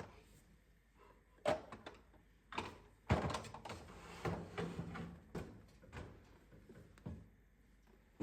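Handling noises: a string of separate knocks and clatters, with a longer stretch of rustling and clattering in the middle, as things are moved about around kitchen cabinets.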